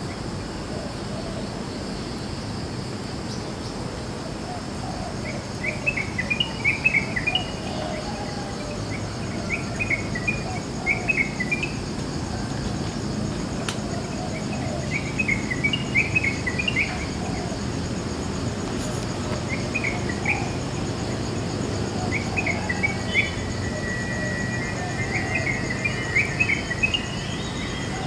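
Yellow-vented bulbuls (trucukan) singing short, bubbly chattering phrases in bursts every few seconds, over a steady high-pitched drone of insects.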